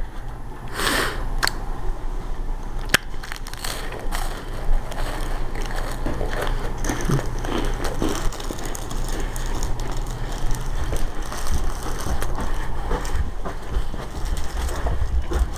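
Scuffling and rustling noise with scattered sharp clicks and knocks and some crackling, from people moving and grappling close to the microphone.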